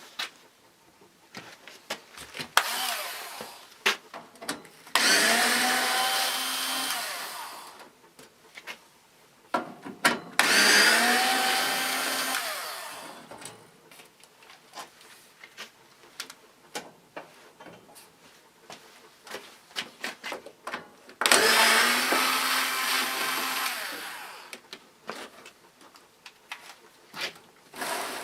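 Electric drill-driver running in four bursts of one to three seconds, its motor pitch rising and falling as it backs out Phillips screws, with clicks and knocks of handling between the runs.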